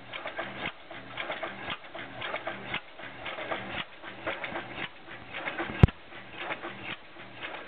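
Large antique hit-and-miss stationary gas engine running, a steady rhythmic mechanical clatter. One sharp crack about six seconds in is the loudest sound.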